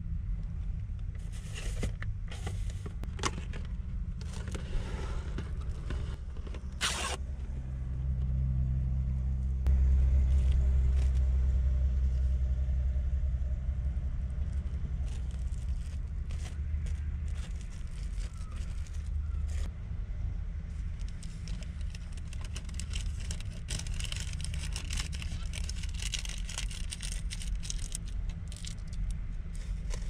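Plastic wrap and a plastic bag crinkling as food is handled, with a few light knocks and clicks early on. A steady low rumble sits underneath and swells louder for several seconds about a third of the way in.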